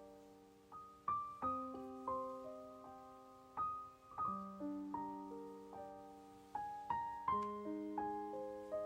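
Soft solo piano background music, a slow melody of single notes that ring out and fade.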